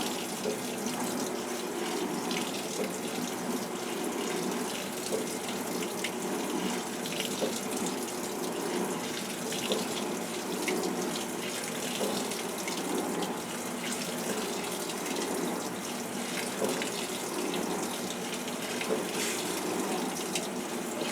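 Maytag top-load washing machine filling: a steady rush of water pouring into the tub.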